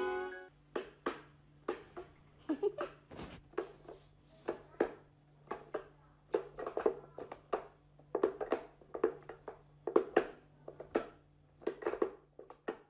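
Wooden whack-a-mole cat toy clacking as its levers are pushed and the little pegs pop up through the holes for the cat to swat: a string of irregular light wooden clicks and knocks, about two a second.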